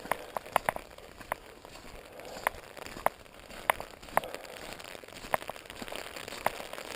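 Raindrops tapping on an umbrella: irregular sharp taps, a few a second, over a light steady hiss of rain.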